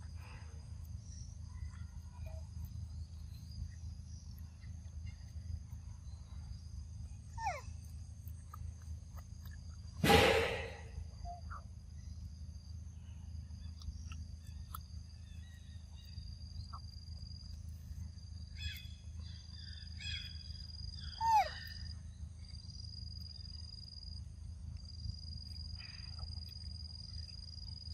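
Outdoor ambience: insects droning in steady high tones over a low rumble. Two short animal calls glide downward in pitch, one about a quarter of the way in and one about three quarters through, and a loud, brief noise cuts in about ten seconds in.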